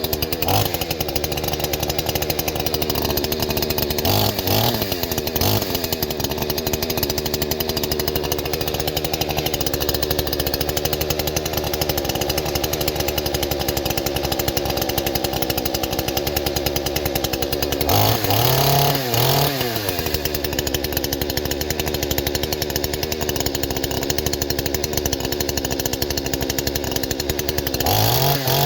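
Proyama 49 cc two-stroke Chinese-clone chainsaw running steadily while cutting wood, still stock and unported. The engine pitch rises and falls briefly about four seconds in, again about eighteen seconds in, and near the end.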